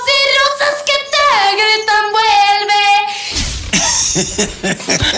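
A young woman singing solo without accompaniment, holding long wavering notes. A little over three seconds in, the singing stops and a short, noisier stretch with a low rumble follows.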